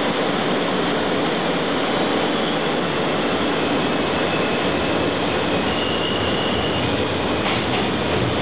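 Inside an R160 subway car leaving a station and running into the tunnel: a steady loud rush of wheel and track noise, with a faint high whine in the second half.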